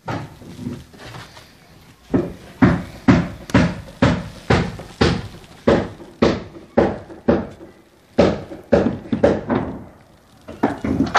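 A run of heavy thuds at a steady pace of about two a second, with weaker knocks before it and a short pause near the end.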